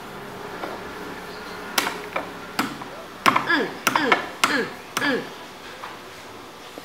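A palm slaps down on the crown cap of a glass beer bottle, several sharp knocks, forcing the opened cap back on. The four louder strikes, between about three and five seconds in, each come with a short falling tone.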